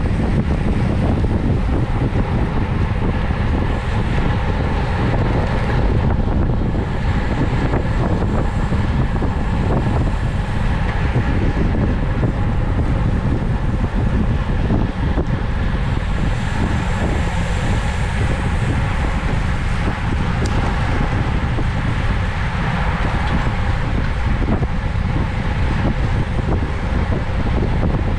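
Steady wind rush buffeting a bike-mounted camera's microphone at racing speed, with road and tyre noise underneath.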